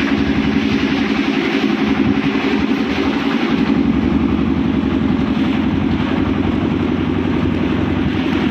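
Large diesel bus engine idling steadily.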